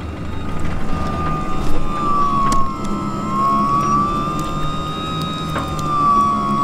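A crab pot puller's motor whines steadily as it hauls a pot line up from the water. The whine wavers slightly in pitch, over a lower hum.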